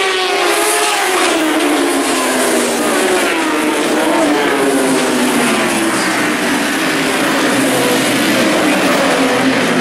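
1000cc four-stroke superbike engines at high revs as the bikes race past, each engine's pitch dropping sharply as it goes by. Several bikes follow close behind, their engine notes overlapping.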